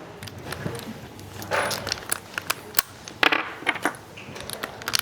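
Small metal screws clinking and parts being handled, a scatter of sharp clicks with two short scraping bursts.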